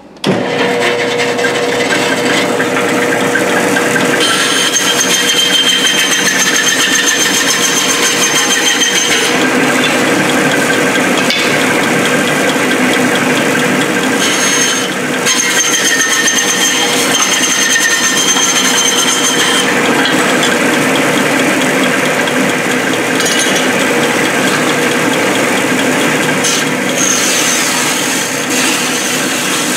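Vertical band saw running and cutting through a thin-finned aluminum air-conditioning radiator, the blade rasping through the fins and tubes over a steady motor hum. A high whine comes and goes in stretches of several seconds as the cut goes on.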